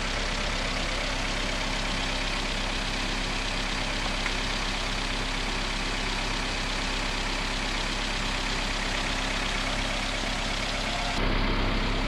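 Car engine idling steadily with the air-conditioning compressor running, the A/C system overcharged with refrigerant and its high-side pressure at about 15 kgf/cm². About a second before the end the sound shifts abruptly to a deeper, louder hum.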